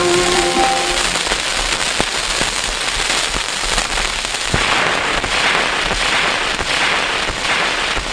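Surface noise of an old 78 rpm shellac gramophone record after the last notes of the song die away about a second in: steady hiss with crackle and scattered sharp clicks, and a soft swish recurring about every three-quarters of a second near the end.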